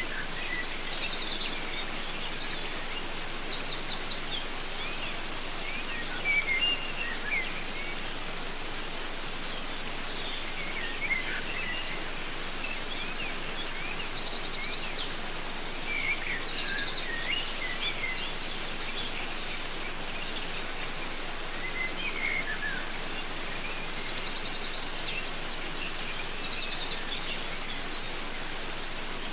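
Waterfall rushing steadily, with birds singing over it. One bird repeats the same high song of quick trilled notes about every eleven seconds, three times, among scattered lower chirps.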